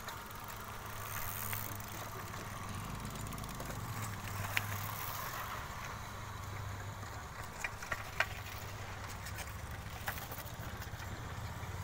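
Mountain bikes rolling down a dirt track, with a few sharp clicks and rattles from the bikes, over a steady low hum.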